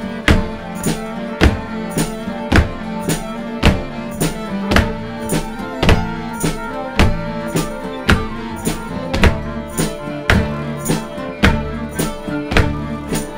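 Acoustic folk band playing an instrumental passage: a bowed fiddle with double bass over a steady beat of percussion strikes, just under two a second.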